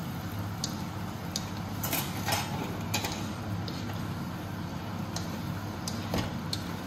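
A nylon spatula scraping and knocking against a kadai as the stir-fry is stirred, with a cornflour slurry just added to thicken the sauce. The scrapes and knocks come irregularly over a steady low hum.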